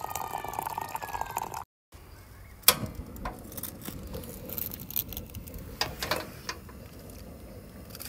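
Water poured from a kettle into a stainless-steel teapot, with a pitched, ringing pour for about a second and a half. Then a portable gas camping stove: one sharp igniter click, the loudest sound, followed by the burner's steady hiss and a few lighter clicks.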